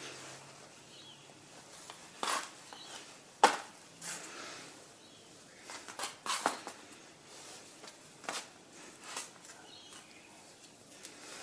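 Scattered clicks and knocks of alternator parts being handled, about seven in all, the sharpest about three and a half seconds in.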